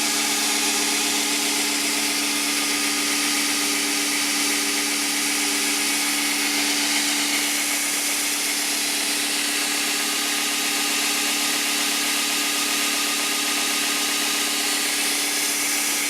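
Black Fox ONE 2x72 belt grinder with a 12-inch serrated contact wheel running steadily with no load, at about 65% speed: an even whir with several held tones over a strong airy hiss.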